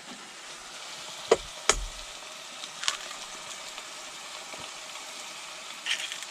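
Grated carrot and egg frying in a pan with a steady sizzle, broken by a few sharp knocks of a utensil against the pan.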